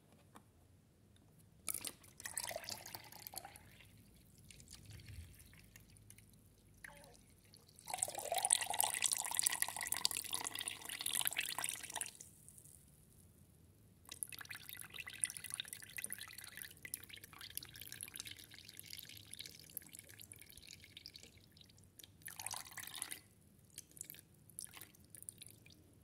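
Water running and dripping from a toy washing machine's corrugated drain hose into a plastic measuring jug, coming in several spells of a few seconds each, loudest about eight to twelve seconds in.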